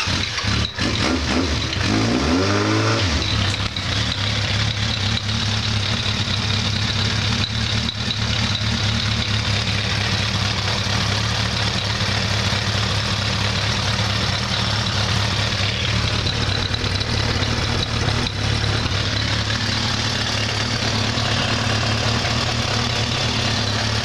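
Suzuki Bandit 1200's air/oil-cooled inline-four running through an aftermarket Black Widow stainless exhaust. The revs rise briefly about two seconds in, then it settles into a steady idle. The newly refitted link-pipe-to-collector joint is running sealed, with no gas leaks according to the owner.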